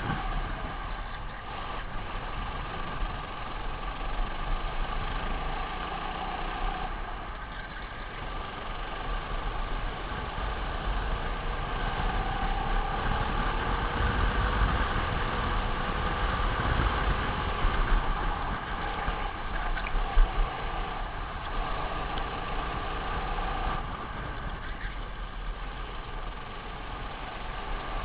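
Racing kart engine heard from on board the kart, its revs rising and falling between corners and straights over a steady low rumble. There is a single sharp knock about twenty seconds in.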